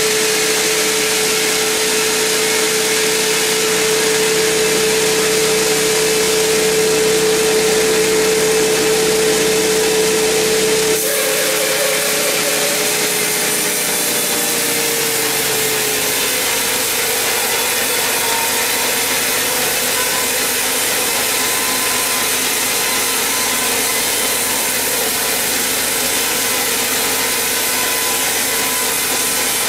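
Sawmill band saw cutting lengthwise through a very large mahogany log: a loud, steady hiss of the blade in the wood with a held whine, which shifts and settles a little lower around the middle.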